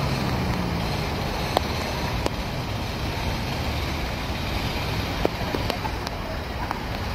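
Steady city street traffic noise, with an electric tram running away along its rails. A low hum fades within the first second, and a few sharp clicks stand out through the noise.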